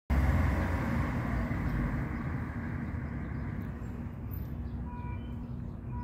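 Motor vehicle traffic rumbling past: a loud low rumble that eases over the first two or three seconds into a steady drone with a low engine hum. A few faint short high tones come near the end.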